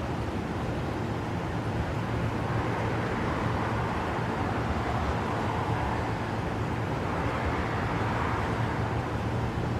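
Steady city traffic noise with a low hum underneath, swelling gently for a few seconds in the middle.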